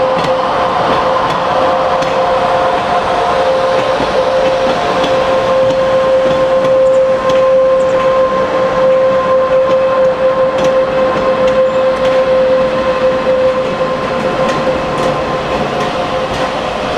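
Train running on the rails: a steady loud rumble with a held, high whine over it and light scattered clicks.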